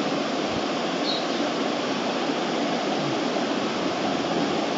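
Steady, even background hiss with no change in level, and a faint short high peep about a second in.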